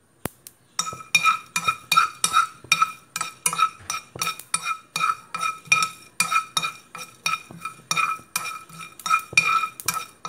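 A spoon stirring and scraping whole spices around a nonstick frying pan as they dry-roast, in quick strokes of about three a second, each stroke making the pan ring briefly. It starts about a second in.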